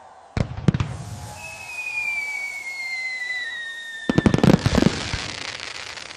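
Aerial fireworks going off: two sharp bangs, a long whistle that falls slowly in pitch, then a rapid run of cracking bangs about four seconds in.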